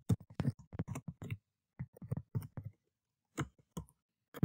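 Computer keyboard typing: quick runs of keystrokes broken by short pauses, with a few single keystrokes near the end.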